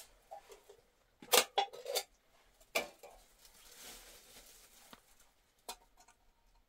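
A few sharp knocks and clinks of objects being handled: a cluster of three about a second and a half in, a single one near the middle, and a fainter one near the end, with a soft rustle between.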